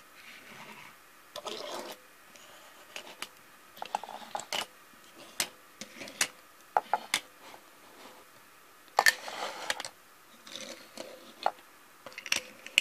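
Small diecast model cars handled on a wooden surface: irregular clicks, taps and short scraping rubs as they are picked up, set down and slid along.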